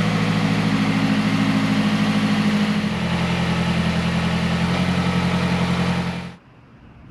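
2012 Mazdaspeed 3's turbocharged four-cylinder engine running steadily, its note shifting about three seconds in and again near five seconds, then cutting off suddenly near the end.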